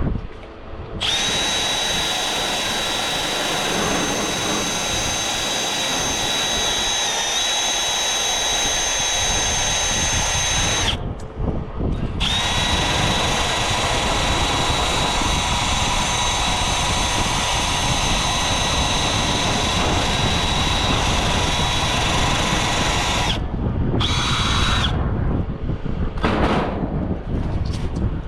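Cordless power drill/driver running at steady speed with a high whine, backing out fasteners to remove an air-conditioner condenser fan motor: two long runs of about ten seconds each, then a short burst.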